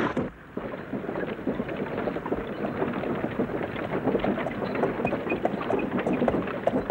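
Steady rush of a swollen, fast-flowing river, a dense noise with small irregular splashes, starting about half a second in.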